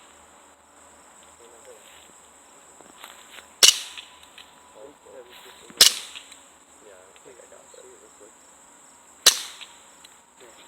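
BB pistol fired three times: three sharp cracks, the second about two seconds after the first and the third about three and a half seconds after that.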